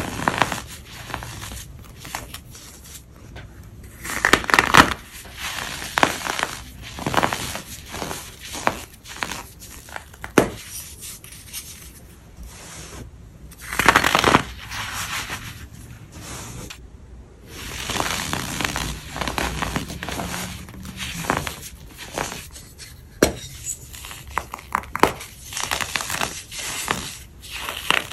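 Crumbly white powder blocks being crunched and crumbled, an uneven run of dry crackles with louder crunches about four seconds in and again around fourteen seconds.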